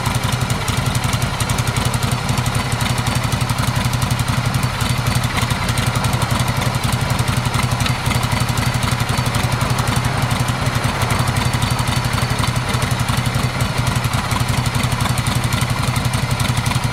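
1978 Harley-Davidson Shovelhead V-twin idling steadily through its home-built exhaust.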